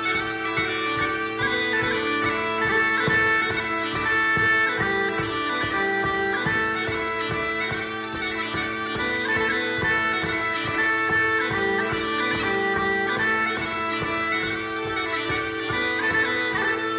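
Bagpipes playing a brisk tune over steady, unbroken drones.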